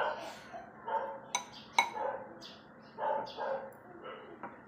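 A dog barking repeatedly in short bursts, with two sharp clinks of metal cutlery against a dish about a second and a half in.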